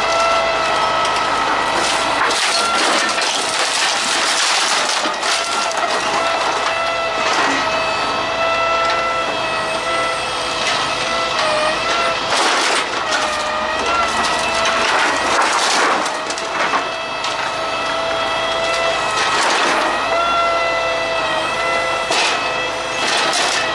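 Wooden pallets cracking and splintering as a truck crane's hydraulic scrap grapple grips and crushes them. Under it runs a steady whine from the truck's engine and hydraulic pump, which sags briefly in pitch several times as the grapple takes the load.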